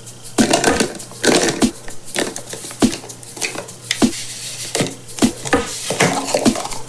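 Hands opening a surprise egg: a wrapper crinkling and crackling, with many sharp clicks and taps.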